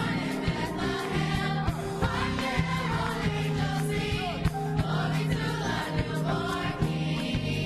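Children's choir singing over a backing track with a steady beat.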